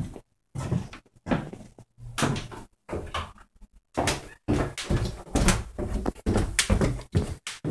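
An interior door being opened and handled: an irregular run of knocks and bumps, about two or three a second, busiest in the second half.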